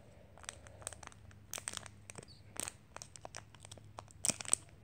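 Foil wrapper of a Bakugan Battle Brawlers card booster pack being pulled open at its tear tab: a run of quiet crinkles and crackles, a few louder ones near the end.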